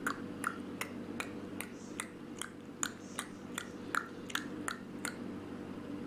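Rose-ringed parakeet making a run of sharp, evenly spaced clicks, about two and a half a second, that stop shortly before the end. A steady low hum sits under them.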